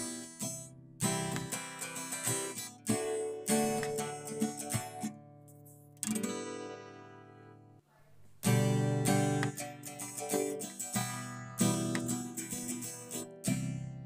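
Background music of an acoustic guitar strumming chords. One chord is left ringing and fades out about halfway through, then the strumming starts again.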